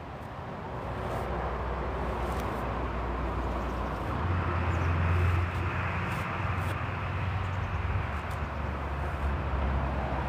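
A vehicle's engine rumbling steadily with a rushing noise. It builds about a second in and is loudest around four to five seconds in.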